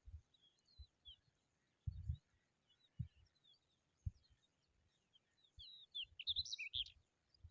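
Small birds chirping in short, high, thin notes, scattered at first and busier near the end. There are a few brief low thumps in the first half.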